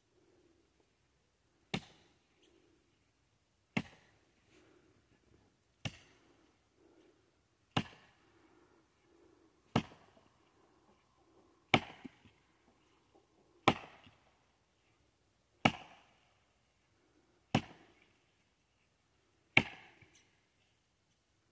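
Axe chopping into a standing tree trunk: ten sharp, evenly paced strikes about two seconds apart, each with a short ringing tail. The later strikes are louder.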